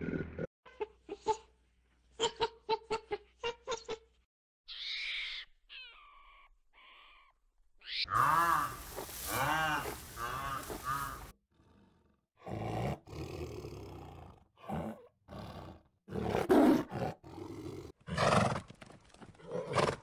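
A string of different animal calls, one after another: first a run of sharp clicks, then short high calls, then louder calls that rise and fall in pitch, repeated several times.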